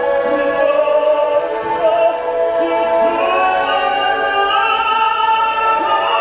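A man singing in an operatic style, holding long notes, over live band accompaniment.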